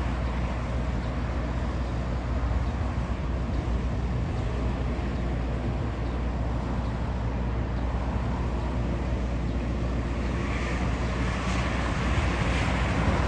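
Boeing 747 freighter's four jet engines running at taxi power: a steady low rumble under a broad hiss, which grows somewhat brighter after about ten seconds as the jet turns side-on.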